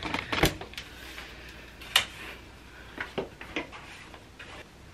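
Scattered light clicks and knocks of objects being handled while tidying up, the sharpest about two seconds in, with a few more a second later.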